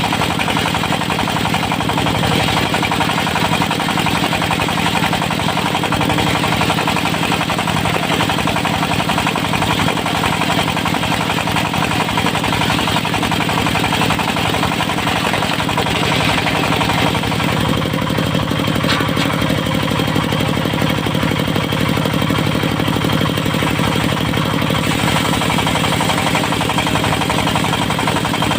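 Diesel engine driving a portable circular-blade sawmill, running steadily with a rapid chugging beat; the tone shifts slightly a little past halfway.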